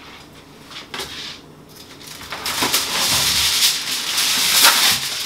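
Aluminium foil pulled from its box and crinkled in the hands: a loud, crackling rustle that starts about two seconds in.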